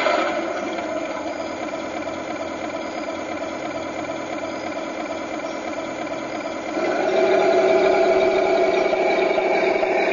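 Simulated tank engine from a Tamiya full-option RC tank's sound unit, played through its built-in speaker: idling steadily after a brief surge at the start, then turning clearly louder at about seven seconds as the tank drives off.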